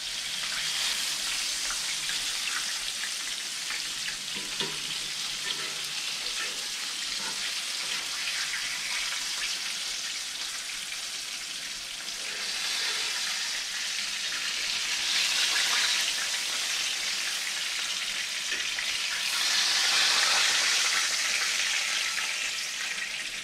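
Floured rockfish fillets frying in hot oil in a cast-iron skillet: a steady sizzle that swells louder twice in the second half.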